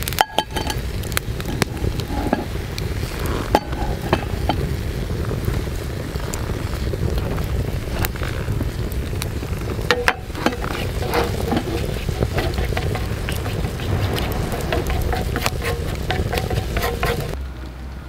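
Wood fire crackling and food deep-frying in a pan of oil over the fire: a steady sizzle dense with sharp pops and crackles. It breaks off abruptly twice and goes quieter and duller near the end.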